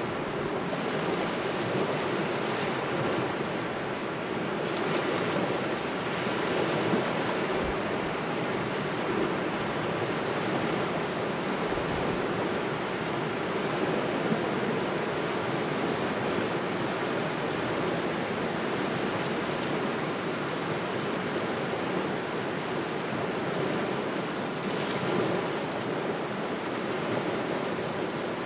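Waves washing against the shore under a steady wind: a continuous rush with gentle swells every few seconds.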